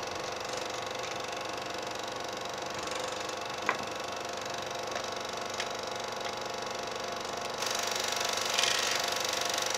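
Eumig-built Revue Lux Sound Super 8 sound projector running, its film transport clattering in a fast, even rattle. There is a single click about four seconds in, and a hiss comes up about three-quarters of the way through.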